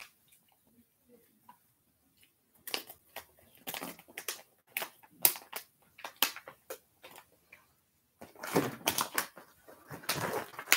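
Crinkling plastic snack package being handled and pulled open: a run of sharp crackles that thickens into dense crinkling near the end.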